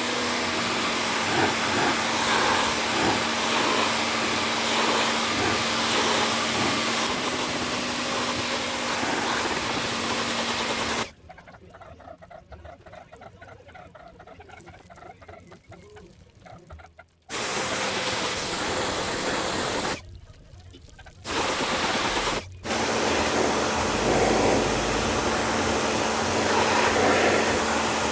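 Pressure washer spraying water in a steady loud hiss over a faint motor hum. It cuts off for about six seconds in the middle, then twice more briefly, as the spray is stopped and restarted.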